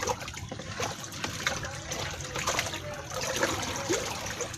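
Water in a container being stirred by hand, sloshing and splashing irregularly as the added medicine is mixed in.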